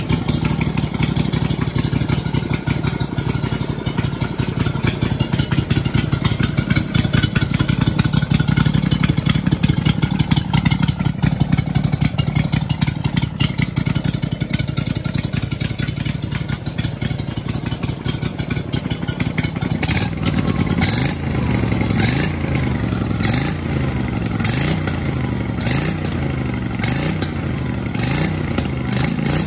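Honda GX620 20 hp V-twin engine running, exhausting through a short steel-tube muffler. It runs steadily at first; from about two-thirds of the way through, its speed rises and falls in a regular rhythm, roughly once a second.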